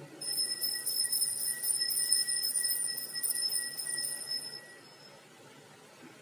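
Altar bells jingling continuously for about four and a half seconds, then stopping: rung at the elevation of the host during the consecration.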